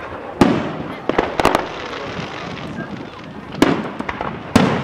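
Fireworks exploding in the air: a loud bang about half a second in, a quick cluster of cracks around a second and a half, and two more bangs near the end, with the crowd's voices underneath.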